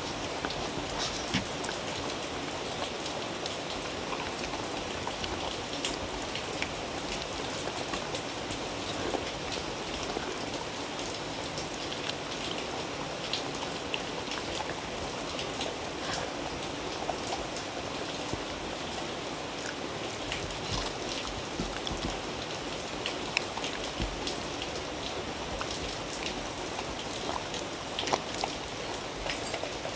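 A dog eating from a wooden bowl up close, chewing and licking wet food: many small scattered clicks over a steady even hiss.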